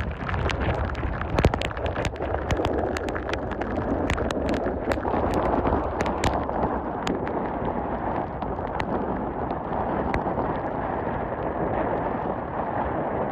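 Typhoon wind buffeting the microphone over crashing surf: a steady heavy rumble and rush, with scattered sharp crackles throughout.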